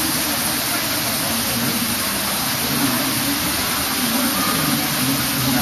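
Steady rushing noise of a waterfall, even and unbroken, with a faint low murmur beneath it.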